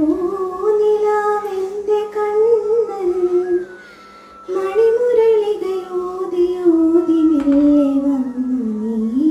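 A woman singing a Malayalam devotional song about Krishna, unaccompanied, in two long drawn-out phrases with a short breath about four seconds in; the second phrase slides slowly down in pitch.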